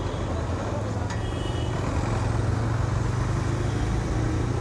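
TVS Raider 125's single-cylinder engine running steadily as the motorcycle pulls away in traffic and slowly gains speed, with road noise.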